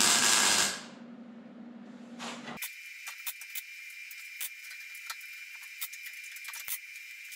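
MIG welding on the steel frame: a loud hissing burst in the first second, then a steady hum. About two and a half seconds in the sound changes abruptly to a continuous crackle with many irregular sharp pops.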